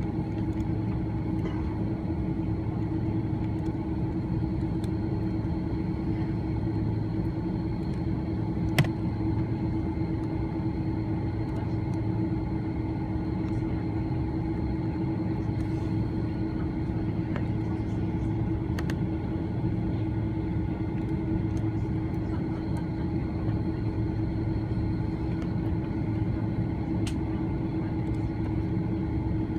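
Airbus A330-300 cabin on the ground: a steady, even hum from the airliner's engines and air systems, with a single sharp click about nine seconds in.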